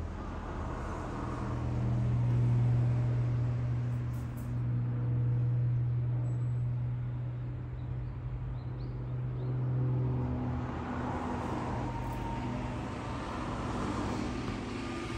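A steady low engine drone with a few fainter steady tones above it, swelling a little in loudness a couple of times.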